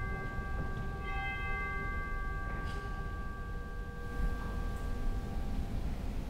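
Altar bell ringing at the elevation of the host during the consecration. It is struck again about a second in, and the ringing tone dies away slowly over the next few seconds.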